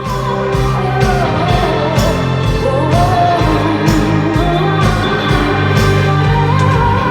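Rock music with a singing voice, drums and guitar, starting abruptly.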